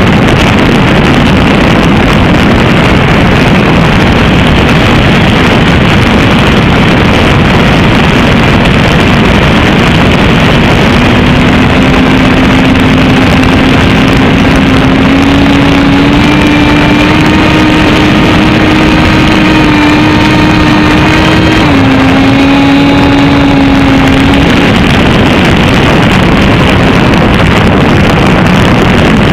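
An FPV drone's motors and propellers heard through its onboard camera, a loud rushing whir with wind on the microphone. About a third of the way in, a steady motor hum comes through. It rises in pitch midway, drops a little, then fades out.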